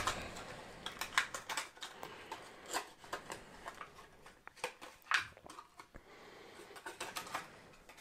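Clear plastic tackle packet being handled as a baiting needle is taken out of it: irregular small clicks and ticks of plastic against fingers.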